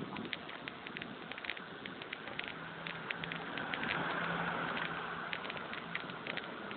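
A bicycle rolling along a paved road, with a dense run of small clicks and rattles from the bike and its mounted camera over the bumps and steady tyre and wind noise. A motor vehicle's low hum swells and passes about four seconds in.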